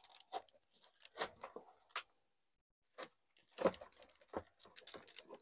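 Old soil being scraped and crumbled from a trident maple's root ball as the roots are teased out: irregular crunching and scraping with short clicks, pausing briefly about halfway through.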